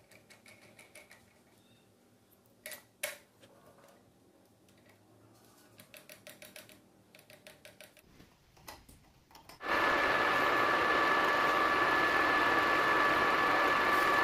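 Light metal clicks and taps as a workpiece is fitted and tightened in a metal lathe's four-jaw chuck, then the lathe starts abruptly a little under ten seconds in and runs steadily with a two-note whine.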